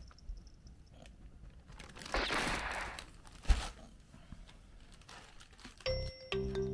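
Plastic wrapping crinkling for about a second as a packaged aluminium cat-nabe bowl is handled, then one sharp click, the loudest sound. Light music with xylophone-like notes begins near the end.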